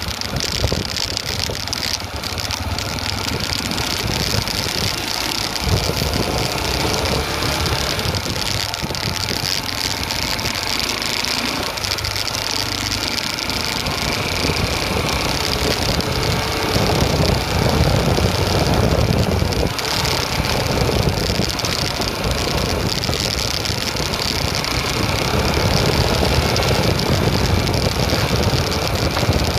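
Motorcycle engine running at low speed while the bike is ridden over a rough dirt trail. It gets somewhat louder for a few seconds past the middle and again near the end.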